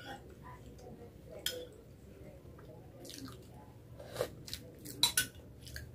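Close-miked eating sounds: chewing and wet mouth noises, with a few short sharp clicks about four and five seconds in as a spoonful goes into the mouth.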